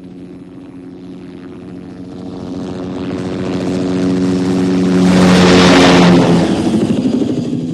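Helicopter engine and rotors growing steadily louder as it closes in, peaking about five to six seconds in with a broad rush of noise, then easing off.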